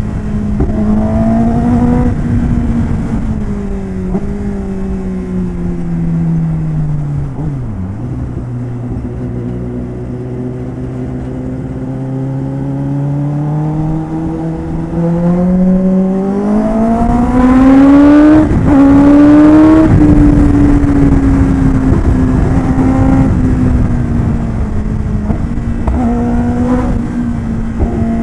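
Kawasaki Ninja ZX-10R's inline-four engine under way, over a steady rushing noise. The engine note falls off over the first several seconds, runs low for a while, then climbs steadily to its loudest and highest about 18 seconds in before settling back to a steady cruising note.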